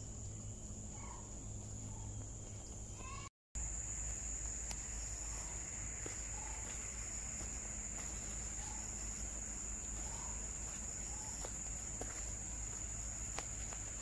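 Steady high-pitched chorus of insects in tropical forest, with a faint short rising call repeating about every second or so. The sound drops out completely for a moment about three seconds in.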